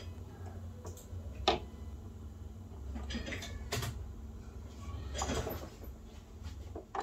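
Turntable at the end of a record side, its tonearm lifting from the run-out groove and swinging back to its rest: a few scattered mechanical clicks and clunks over a faint low hum.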